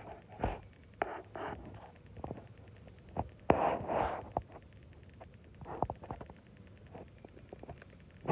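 Hens right at the microphone making soft, low clucking sounds, with scattered sharp taps and a louder burst about three and a half seconds in.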